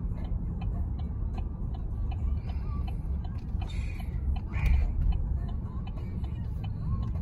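Car's turn signal ticking steadily, about two to three clicks a second, over the low road and engine rumble inside the cabin, as the car signals a left turn. A brief louder noise comes a little past the middle.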